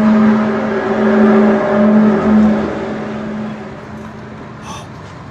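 A loud, steady droning tone with overtones that swells and dips a few times, then fades after about three seconds.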